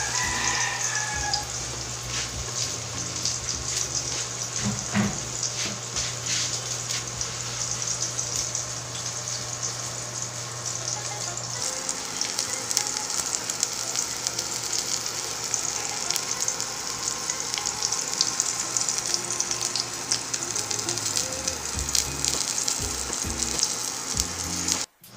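A tuna steak sizzling as it pan-fries in oil in a stainless steel wok: a steady hiss with many small crackles and pops. A low hum underneath stops about halfway through.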